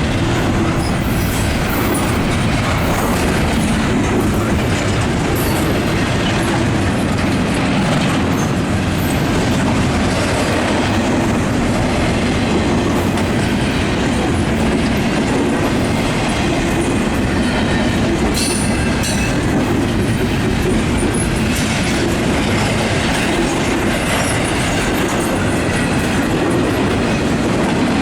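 Freight train cars rolling past at steady speed, wheels clacking over the rails, with a few sharp metallic clanks.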